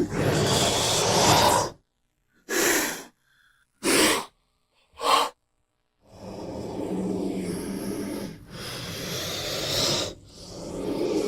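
Cobra hissing: a long hiss, then three short, sharp hisses about a second apart, then longer drawn-out hisses with a low tone running through them.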